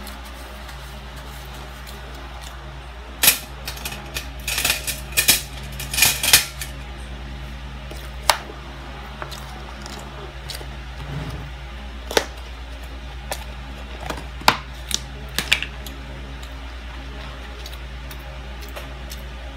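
Scattered light clicks and clatters of plastic cutlery and food packaging being handled at a meal, a quick cluster a few seconds in and then single ones spaced a few seconds apart, over a steady low hum.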